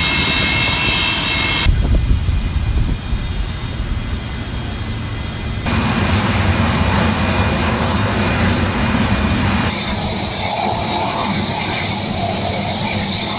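Antonov An-124's turbofan engines running, with a high turbine whine in the first couple of seconds. The engine noise changes abruptly in character three times, about 2, 6 and 10 seconds in.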